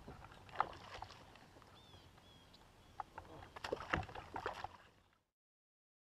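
Northern pike splashing at the side of a kayak as it is hand-landed, with knocks from the rod and hull over a faint lap of water. There is a cluster of splashes and knocks from about three and a half to five seconds in, then the sound cuts off abruptly.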